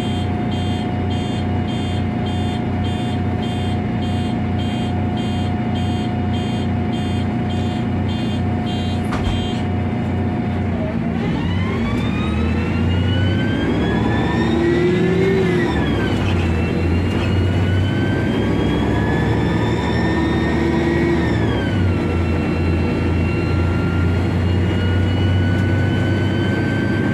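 City bus heard from inside the cabin. It idles with a steady whine and a regular ticking about twice a second. About eleven seconds in it pulls away: a whine climbs in pitch, drops sharply at a gear change, climbs again, drops again a few seconds later, then holds as the bus cruises.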